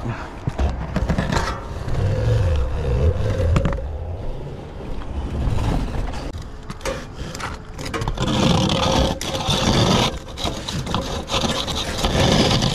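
Scraping and crinkling of a flexible corrugated aluminum vent liner being worked through a brick chimney flue, mixed with shuffling on asphalt shingles. It turns louder and brighter about eight seconds in.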